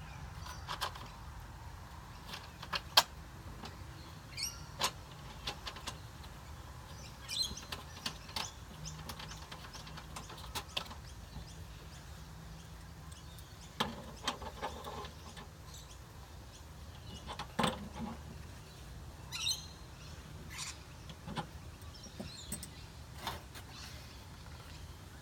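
Scattered sharp clicks and knocks over a steady low hum, with a few short high chirps in between.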